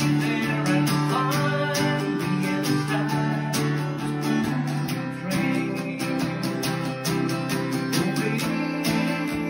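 Acoustic guitar played in a steady rhythm of strums and picked notes, with chords ringing on under each stroke.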